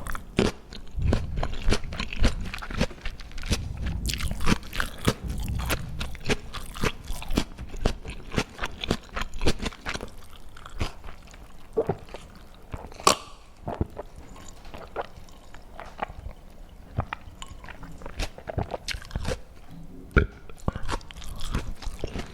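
Close-miked eating: a person biting and chewing crunchy food, with many sharp crunches that come thick and fast in the first half and thin out later, one especially loud crack about thirteen seconds in.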